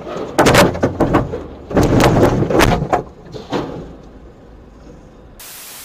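Road collision heard from a dashcam: a run of loud crunching and banging impacts over about three seconds as a car is squeezed between two lorries. A short burst of static hiss comes near the end.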